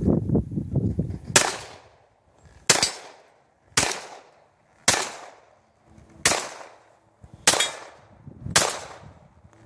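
Armscor Citadel full-size 1911 pistol firing a steady string of seven single shots, a little over a second apart, each with a short echo. A low rumbling noise comes before the first shot.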